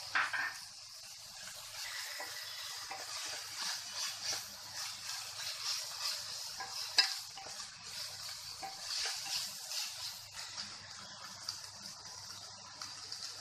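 Sweet corn and finely chopped vegetables sizzling in oil in a kadai while a wooden spatula stirs and scrapes them across the pan. A sharp knock comes about seven seconds in.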